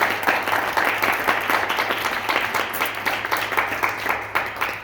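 Audience applauding: many people clapping together, the clapping thinning out near the end.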